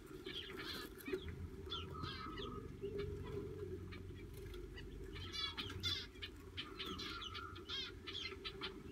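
Zebra finches chirping: many short, high calls in quick succession, with a rapid trill about five and a half seconds in.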